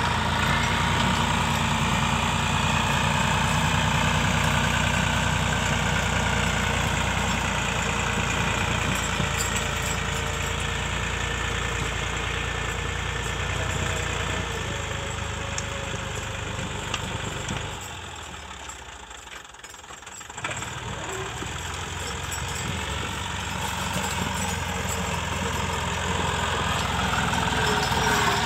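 Tractor engine running steadily. About two-thirds of the way through it drops away sharply for a couple of seconds, then comes back and builds up again toward the end.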